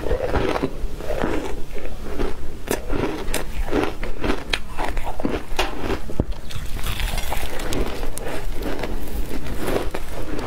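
Mouthfuls of frozen pressed shaved ice being bitten and chewed close up: repeated sharp, irregular crunches as the ice breaks between the teeth, with the wet grinding of crushed ice being chewed.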